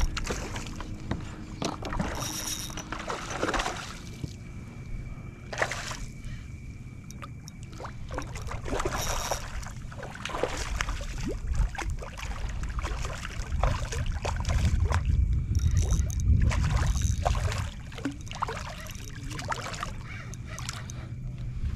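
Water sloshing against a kayak hull, with scattered short knocks and clicks and a low rumble that grows louder in the second half.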